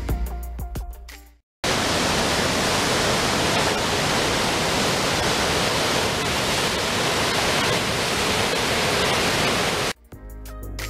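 Background music fades out, then a waterfall in full spring flood, swollen with snowmelt, gives a steady rush of white water for about eight seconds. The music comes back near the end.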